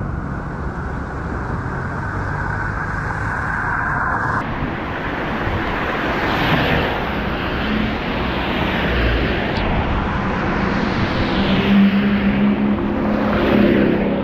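Cars driving past on a rain-soaked street, their tyres hissing on the wet asphalt. Several passes swell up and fade over a steady wash of noise, with a faint engine hum near the end.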